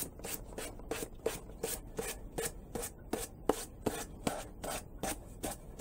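Hand sanding a wooden whirligig cutout with 150-grit sandpaper: quick back-and-forth scratching strokes, about three a second, steady throughout.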